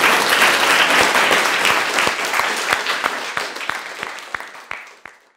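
Audience applauding, the clapping thinning to a few scattered claps and stopping about five seconds in.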